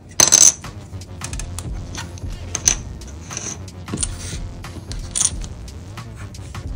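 Hobby side cutters snipping an ABS plastic kit part off its runner with one sharp snap about a quarter second in. Light clicks and clatter of the plastic parts and runner being handled follow.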